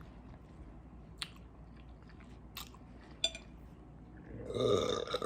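Chewing a mouthful of spaghetti, with a few sharp wet mouth clicks, then a burp lasting about a second near the end.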